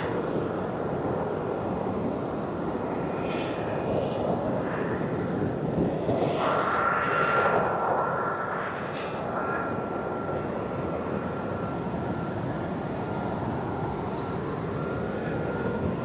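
Airplane flying overhead, a steady engine sound that swells for a couple of seconds about six seconds in, then eases.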